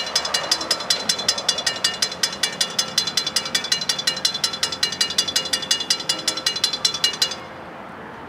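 Safetran mechanical railroad crossing bell ringing fast and evenly, about five strikes a second, while the crossing gates come down. It cuts off suddenly about seven seconds in, as the gates reach horizontal, leaving a steady background hum of the street.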